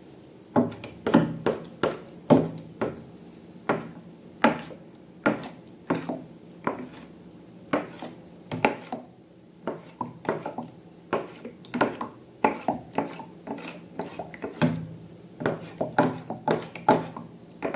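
Slime being handled and worked, giving an irregular run of sharp sticky clicks and pops, about two or three a second.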